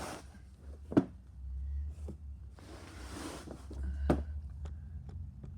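Footsteps and rustling handling noise as a hand-held camera is carried around, with two sharp knocks, about a second in and about four seconds in, over a low rumble.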